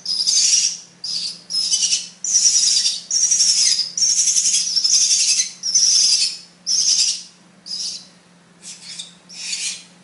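Bali myna nestlings begging for food with a fast run of high, raspy calls, each slightly falling and about half a second long, roughly two a second. The calls thin out about eight seconds in and pick up again near the end.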